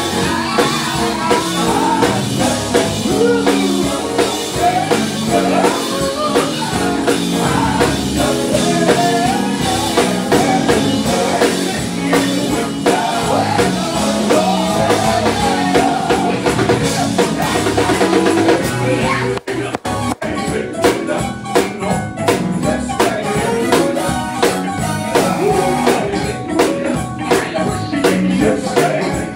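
Gospel quartet singing live through microphones over a band with a drum kit keeping a steady beat. About two-thirds through, the sound drops out for a moment, then the drums and percussion come back strongly.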